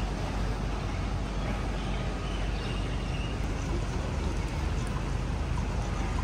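Street ambience: steady hum of city road traffic.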